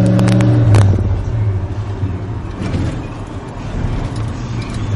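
1991 Chevrolet 1500 pickup engine pulling hard at high revs under full throttle, still not fully warmed up. About a second in the throttle lifts and the steady engine note falls away to a lower rumble of engine and road noise as the truck coasts.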